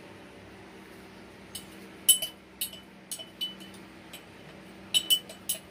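A spoon tapping and clinking against a glass jar while freshly ground coffee is spooned into it. There are about ten light, irregular clinks, starting about a second and a half in, over a faint steady hum.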